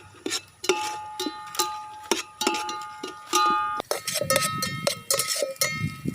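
Metal ladle knocking and scraping in a metal cooking pan while spices are stirred, a dozen or so irregular clinks, each with a short metallic ring.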